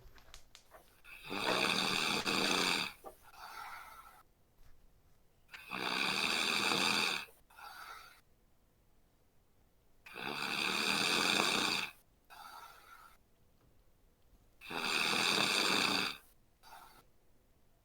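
A sleeping man snoring: four loud snores about four and a half seconds apart, each followed by a shorter, softer sound.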